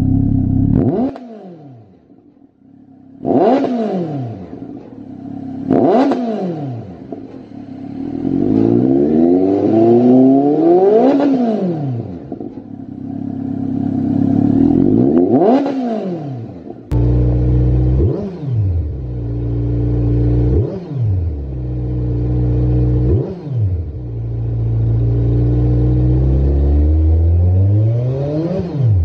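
Motorcycle engines free-revved at standstill through Lextek aftermarket silencers. First a smaller bike idles and is blipped about five times, one longer rev rising and falling midway. About 17 seconds in it cuts to a larger bike with a deeper idle, blipped three times and then given a longer rev near the end.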